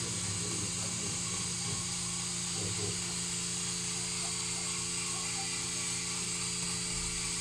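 Steady machine hum with a constant high hiss, from hospital equipment running.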